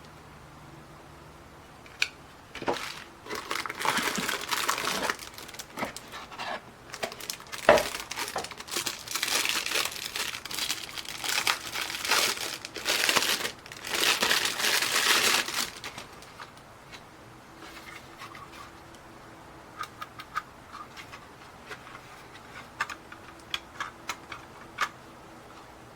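Crinkling and rustling handling noise, in dense bursts for about thirteen seconds, followed by a scattered run of light clicks and taps.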